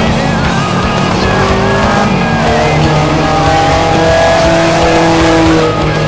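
Race car engines running at speed as the cars drive along the straight, with several engine notes holding and changing pitch.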